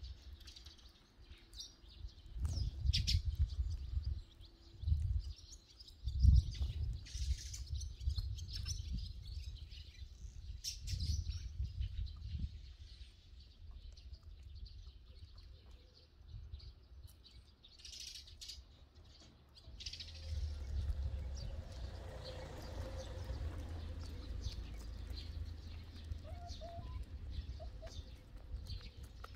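Eurasian tree sparrows chirping in many short, scattered calls, thickest in the first two-thirds. Intermittent low rumbling bursts are the loudest sounds.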